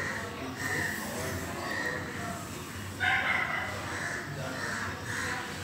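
A series of short animal calls, with a louder one about three seconds in.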